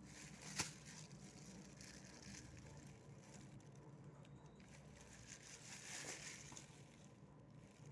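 Near silence with faint room tone, a single sharp click about half a second in, and soft rustling later on.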